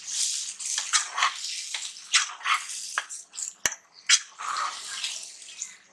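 A spatula stirring and scraping thick masala paste as it fries in a nonstick wok. The strokes come one after another at an uneven pace, with one sharp click a little past the middle.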